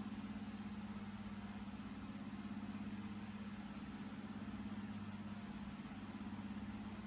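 Steady low hum throughout, with no change in pitch or level.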